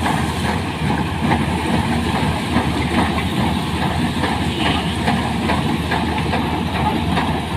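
Combine harvester running as it works a sunflower field: a steady diesel engine and threshing-machinery drone, with a constant clatter of short rattles and clicks from the header and reel gathering the dry crop.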